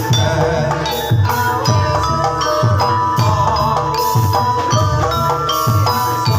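Javanese gamelan music accompanying a jathilan horse dance: drums beating a fast, steady rhythm under ringing metallophone notes.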